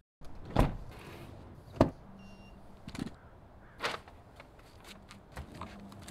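About five separate sharp knocks and clicks, spaced a second or so apart, the loudest nearly two seconds in, over a faint background hiss.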